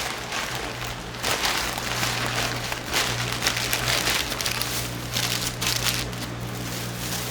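A person chewing and smacking on a mouthful of steak sandwich, heard as irregular wet crackly bursts over a low steady hum.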